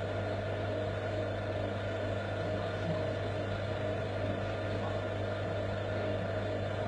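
Vacuum pump running with a steady hum, pumping down a glass flask of water so that the water boils and freezes at the same time.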